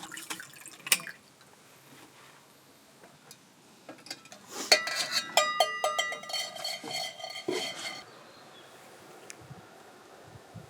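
Dishes clinking and knocking together as they are handled, a cluster of ringing clinks lasting about three seconds in the second half, after a single sharp click about a second in.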